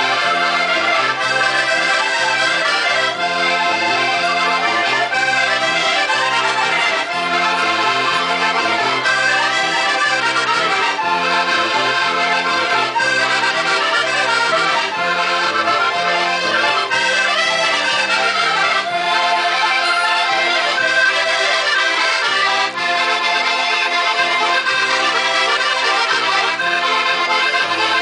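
Portuguese diatonic button accordions (concertinas) and a piano accordion playing together: a lively cana verde folk dance tune from the Minho, with a steady alternating bass under the melody.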